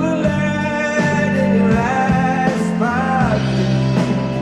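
Live band music with a male voice singing a drawn-out, wavering line, its pitch bending twice, over steady sustained instruments.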